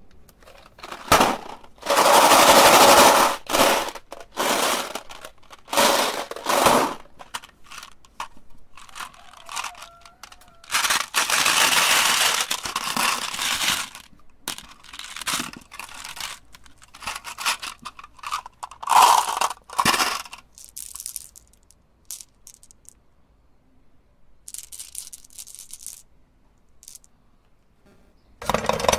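Hard objects cracking and crunching in a meat grinder, in irregular bursts with sharp clicks between. The longest, loudest bursts come about two seconds in and again about eleven seconds in, and it grows sparse and quiet after about twenty seconds.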